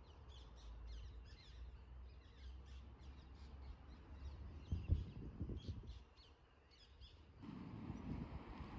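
Faint outdoor birdsong, many short chirps from small birds over a low background rumble. About seven seconds in, a steadier rush of wind on the microphone comes in.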